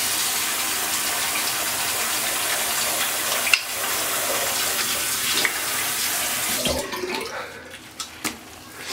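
A bathroom tap running into a sink, stopping about seven seconds in, followed by two short splashing sounds as hands wash water over the face.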